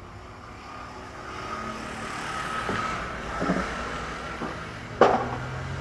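A motor vehicle passing close by, its engine sound building up over a few seconds with a steady whine. There is a single sharp knock about five seconds in.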